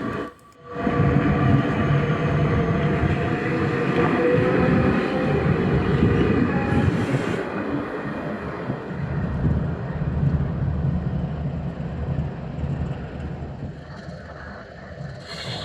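Metra Electric electric multiple-unit train moving along the platform, a loud rail rumble with a steady motor whine. The whine fades out about halfway through and the rumble slowly dies away.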